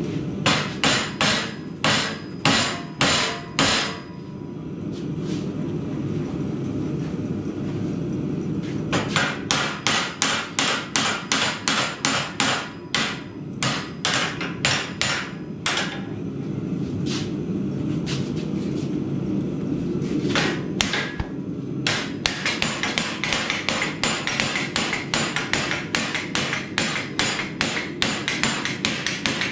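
Hand hammer striking a red-hot steel axe head clamped in a leg vise, forging it by hand. The blows come in runs of about three a second, with pauses of a few seconds between runs, over a steady low rumble.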